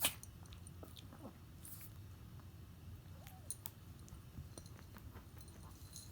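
Faint clicking and smacking mouth sounds from a small dog, scattered through a low steady hum, with one sharp click right at the start.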